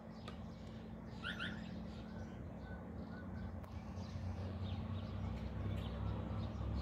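Quiet street sound with a few short bird calls about a second in, then a car's engine and tyres growing louder as it approaches near the end.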